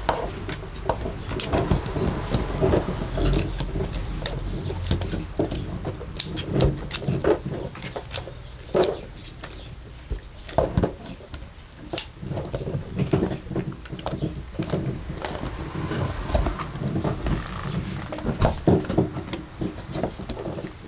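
Basset hound chewing and gnawing a dog chew: a steady run of irregular wet smacks and clicks.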